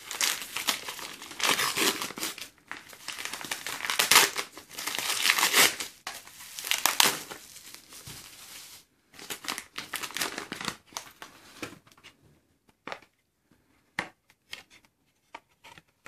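Brown paper wrapping being torn and crumpled off a small package by hand, in loud bursts of rustling and ripping for about the first nine seconds. After that come only scattered light clicks and taps as the packaging is handled.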